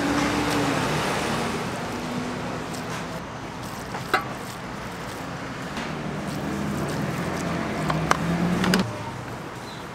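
Busy street-market ambience: a steady hubbub with a low drone that shifts in pitch, and a few sharp clacks, one about four seconds in and two more near the end.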